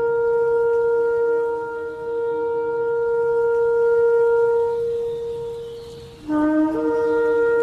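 A horn-like wind instrument holds one long note that fades away about five to six seconds in. It then starts again abruptly with a short lower note that jumps up to the same high held note.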